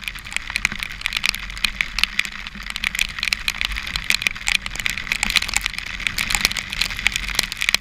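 Raindrops striking the camera and its microphone in heavy rain: a dense, irregular crackle of sharp ticks over a steady low rumble.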